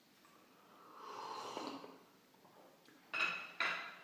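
A man eating noisily: a drawn-out noisy intake of breath through food that rises and falls about a second in, then two short loud mouth-and-nose noises half a second apart near the end.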